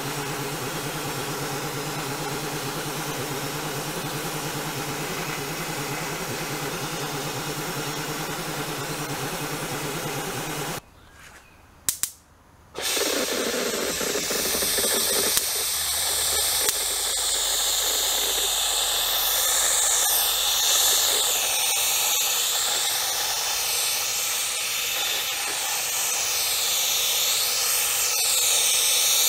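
An abrasive blaster hisses against a steel panel over the steady hum of a motor, which stops about eleven seconds in. After a brief pause with a couple of clicks, a paint spray gun hisses steadily while spraying paint.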